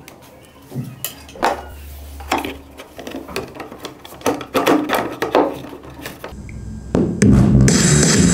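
Light knocks, clicks and clatter of plastic enclosure panels being handled and fitted together by hand. About seven seconds in, loud music starts.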